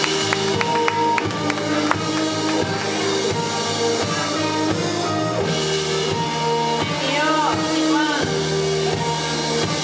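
Live electronic pop music: held synth chords over a steady drum beat.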